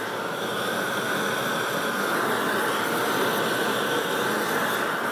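Hand-held gas torch burning with a steady roar, heating a bronze sculpture.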